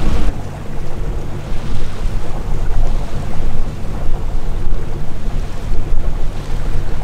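A sailing yacht under way in calm water: a steady low drone with water rushing along the hull and wind buffeting the microphone.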